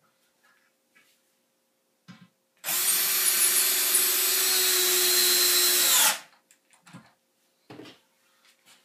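Cordless drill running steadily into the end of a pine frame board for about three and a half seconds, then stopping. A few light knocks of wood come before and after it.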